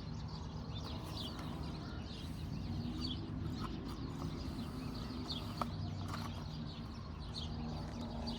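Faint birds chirping now and then over a steady low hum, with one or two small ticks.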